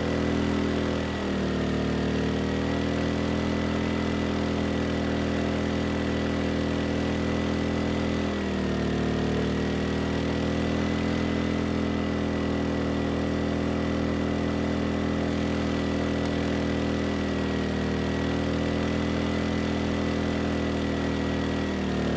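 Erayak 4500PD inverter generator's small 150 cc engine running on gasoline under a near-maximum load, with a thin steady whine above it. Its note dips briefly about a second in, about eight seconds in and again near the end. It is holding the load but struggling, right at the edge of its capacity.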